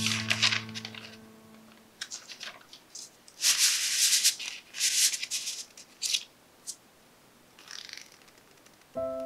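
Parchment paper rustling and crinkling in several loud, irregular bursts as a sheet is lifted and slid on a metal baking tray, with a fainter rustle near the end. A guitar chord dies away at the start.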